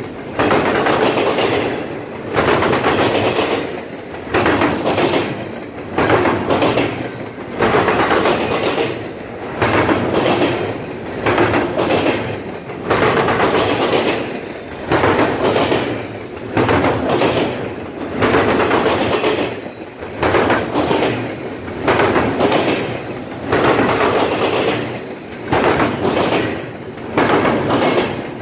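Double-stack intermodal freight train rolling past, its wheels clattering over a railroad diamond crossing. Each clattering surge hits suddenly and fades, repeating about every two seconds as car after car goes over.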